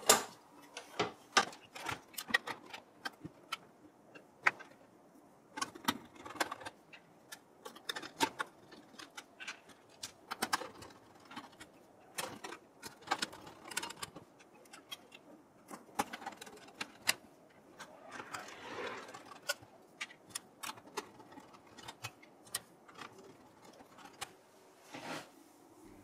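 Irregular small clicks, taps and metallic knocks of a motherboard being set into a steel PC case and screwed down with a screwdriver, with a short scraping stretch about two-thirds of the way through.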